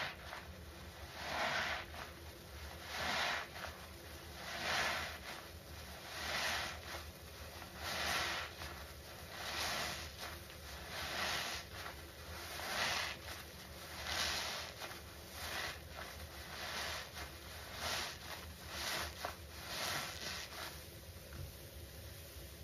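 Sudsy foam sponges squeezed over and over in gloved hands, a wet squelch of foam and soapy water about every second and a half. The squeezes turn softer and quicker near the end.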